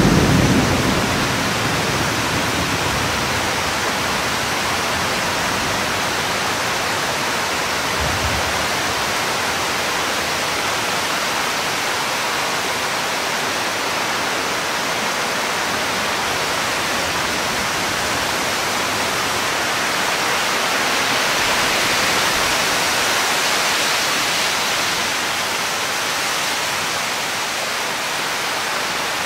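Heavy rain pouring down steadily in a thunderstorm, an even rushing hiss, with the tail of a thunder rumble fading out in the first second. The rain swells a little louder about three-quarters of the way through.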